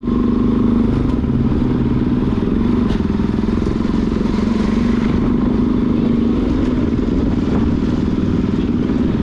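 Motorcycle engine running at a steady pitch, with no change in revs.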